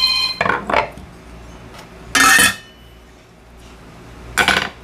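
Metal kitchen utensils clinking and scraping against a ceramic mixing bowl and a wooden cutting board: a few short clatters, the loudest a brief scrape about two seconds in and another clatter near the end. A ringing tone cuts off just after the start.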